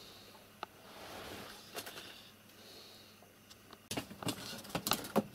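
A cat's claws scrabbling and rattling against a wire grille and cardboard as it tries to claw its way through: a quick run of sharp scratchy clicks that starts about four seconds in, after a quiet stretch with a few faint soft sounds.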